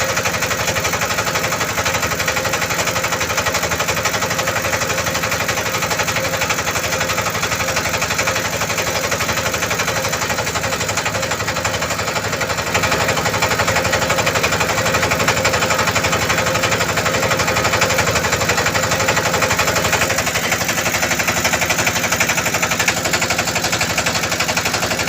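A boat's engine running steadily with a rapid, even chugging. It gets a little louder about 13 seconds in.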